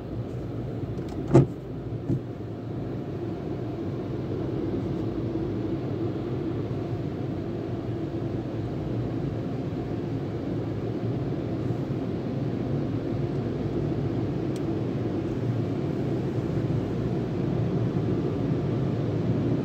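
Steady low rumble of automatic tunnel car wash machinery, muffled inside the car's cabin, growing slightly louder toward the end. Two sharp knocks come near the start, the first the loudest sound.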